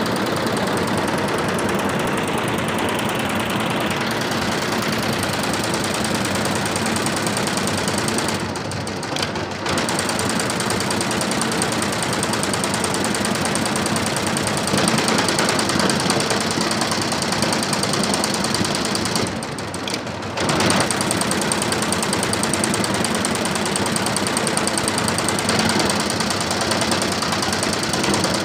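Multi-needle computerized embroidery machine running, its needles stitching in a fast, even mechanical rhythm. It briefly drops quieter twice, about a third and two thirds of the way through.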